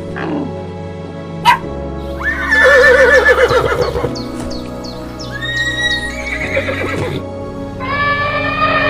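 Horse neighing: a quavering whinny about two seconds in and another around six seconds, over background music. A sharp click comes just before the first whinny.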